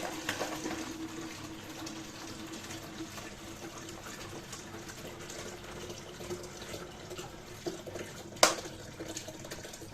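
Water tap running steadily, with one sharp knock about eight and a half seconds in.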